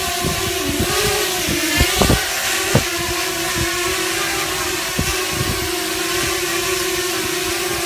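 Scorpion Sky Strider 280 quadcopter hovering, its brushless motors and three-bladed props giving a steady whine that wavers slightly in pitch as it holds position. A few brief low thumps come about two to three seconds in.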